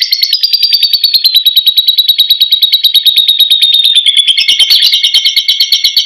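Lovebird giving its 'ngekek': one long, unbroken chattering trill of rapid high notes, about ten a second, that sinks slightly in pitch and turns fuller and harsher in its second half.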